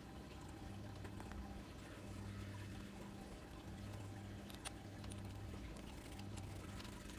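Faint light clicks and handling noises from small brake master cylinder parts being cleaned, over a low hum that drops out and returns every second or so.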